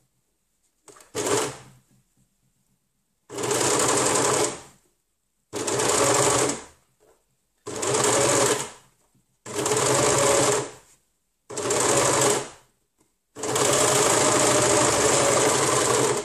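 Overlocker (serger) stitching in stop-start runs: a short burst about a second in, then five runs of about a second and a half each with short pauses between, and a longer run of about three seconds near the end. This is a sleeve being serged around a curved armhole seam, with the fabric turned between runs.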